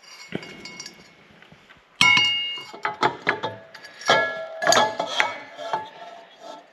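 Ceiling fan's metal switch housing knocking and clinking against the motor housing as it is fitted on and turned to line up its holes: faint clicks at first, then a loud clank about two seconds in with a short metallic ring, followed by a string of smaller knocks and clinks.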